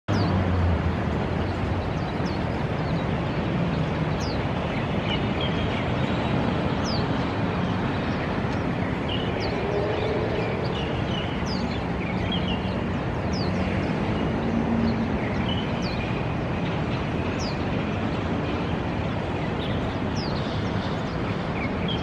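Swinhoe's white-eye giving short, thin, high call notes, roughly one a second, over a steady background rumble that is the loudest sound throughout.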